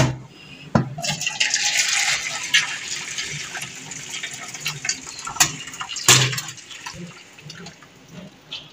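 Hot cooking water poured from a steel pot of parboiled chicken livers into a colander in a steel sink, a rushing splash for about four seconds. Sharp metallic clanks of the pot and lid come at the start and again after the pour.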